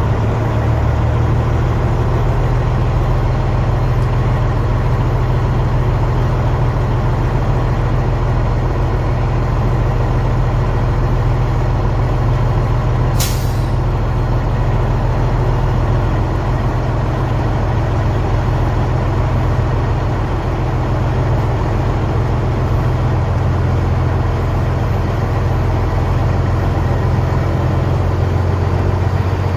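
Semi truck's diesel engine running steadily while pulling a loaded flatbed trailer at low speed, with one short hiss of air from the air brake system about halfway through.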